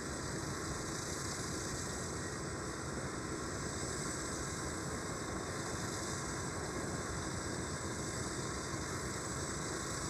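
Steady, unchanging engine drone with a constant high hiss; it neither rises nor falls.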